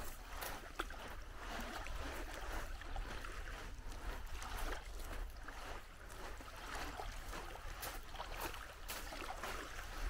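Small waves lapping and splashing at the edge of a sandy shore, a continuous uneven wash over a steady low rumble.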